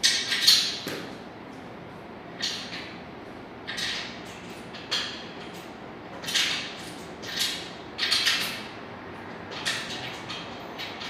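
A run of about ten short scraping sounds at uneven intervals, from sofa parts being handled and fitted together during assembly.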